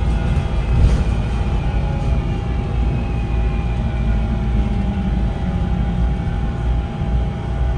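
VDL Citea SLFA-180 hybrid bus running, a steady heavy low rumble with a steady high whine above it and faint higher tones that slowly fall in pitch.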